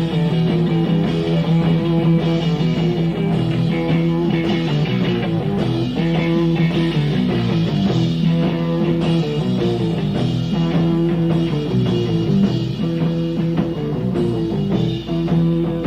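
Rock band playing an instrumental passage live: guitar lines over bass and drums, with no singing.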